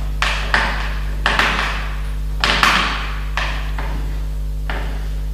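Sharp clicks and knocks of a Zomax ZM 4620 chainsaw's parts being fitted together by hand, about eight of them, some in quick pairs, over a steady low hum.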